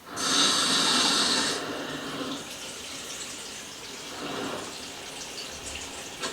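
Water running from a tap into a basin: it comes on suddenly at full flow for about a second and a half, then keeps running more quietly.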